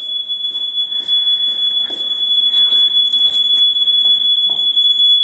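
Smoke alarm sounding one steady, unbroken high-pitched tone, set off by smoke from a pot of ramen noodles that was cooked without water and burned.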